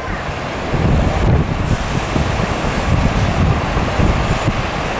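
Boeing 747-400F's four jet engines at takeoff power as the freighter lifts off and climbs, a steady rushing noise heaviest in the low end, with wind buffeting the microphone.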